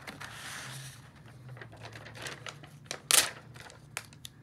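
Paper rustling and crinkling as a printed sheet is handled and slid across a table, with one louder, sharper rustle about three seconds in and a few light clicks.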